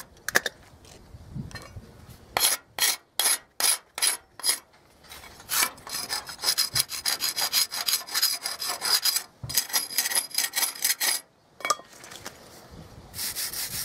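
Wire brush scrubbing loose rust and flaking paint off a wrought-iron gate rail in back-and-forth rasping strokes: separate strokes about three a second a few seconds in, then a long run of fast scrubbing, a short break, and fast scrubbing again near the end.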